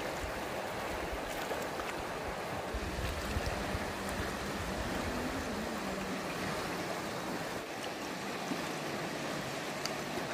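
River flowing: a steady wash of running water, with a brief low rumble of wind on the microphone about three seconds in.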